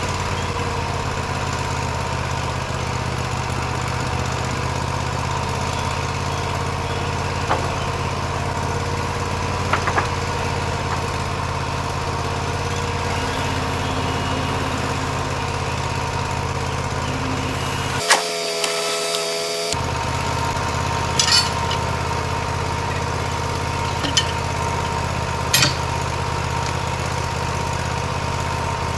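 Portable band sawmill's engine running steadily, with a few sharp knocks. About 18 seconds in, the engine sound breaks off for under two seconds and a short pitched sound takes its place.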